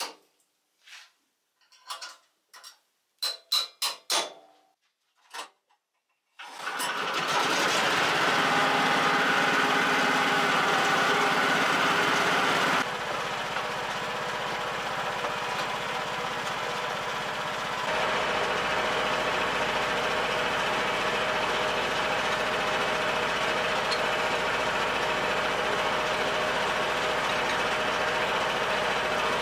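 A few sharp knocks and clicks, then, about six seconds in, the engine of a self-made garden tractor starts up and runs steadily.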